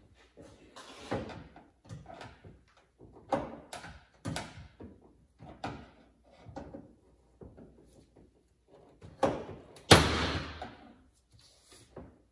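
A screwdriver prying and scraping at the seam of a car's sheet-metal roof panel: irregular scrapes and knocks, with one loud bang about three quarters of the way through that rings on briefly.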